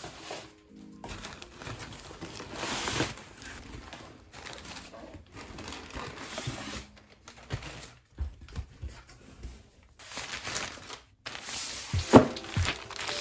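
Brown kraft packing paper crumpling and rustling as paper-wrapped stacks of books are handled and pulled from a cardboard box, with a few soft knocks near the end as the stacks are set down on a desk.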